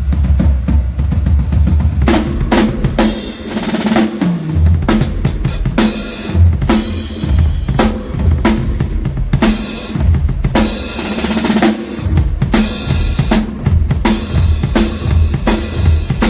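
Drum kit played solo in a soundcheck: kick drum, snare and cymbals in a steady groove, with a fill down the toms about three to four seconds in.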